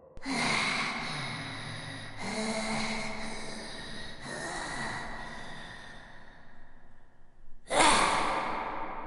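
Zombie vocal sound effect: a human voice making drawn-out, breathy growling breaths, three long ones in a row. A louder, sharper snarl comes near the end.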